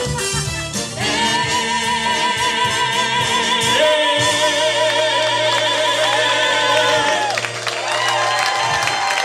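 Two voices sing a long held final note with vibrato over a band's sustained chord. The first voice enters about a second in and a second, lower voice joins a few seconds later. Both cut off about seven seconds in.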